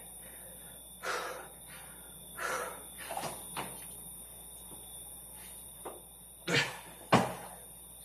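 Short, hard breaths and thumps of a person doing burpees with push-ups on the floor, coming in bursts every second or two. The two loudest come near the end, as he jumps back up to standing.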